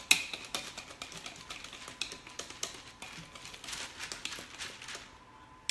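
Cornbread batter being stirred by hand in a ceramic mixing bowl: a quick, irregular run of utensil taps and clicks against the bowl, stopping about five seconds in.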